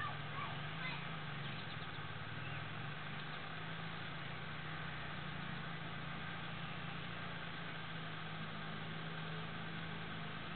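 Small ATV (four-wheeler) engine running with a steady hum under a constant hiss.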